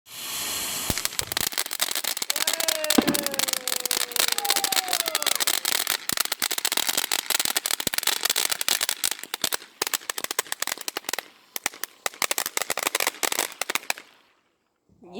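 Firework crackling: a dense, rapid run of small pops that thins out in the last few seconds and stops shortly before the end.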